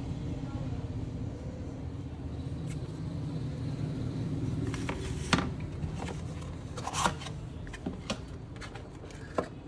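Hands handling a cardboard phone box and its plastic packaging: a run of taps, clicks and rustles in the second half, the loudest a sharp knock about halfway through. Under it runs a steady low hum.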